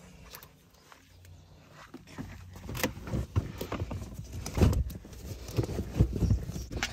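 Rubber floor mats being handled and dropped into a car's footwells: a run of soft, irregular thumps and scuffs that starts about two seconds in, loudest a little past the middle and again near the end, mixed with footsteps on pavement.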